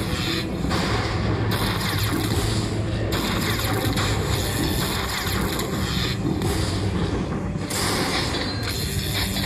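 Lightning Dollar Link slot machine playing its bonus sound effects: booming, crackling lightning-strike crashes over the game's music as coin values are collected into the win meter.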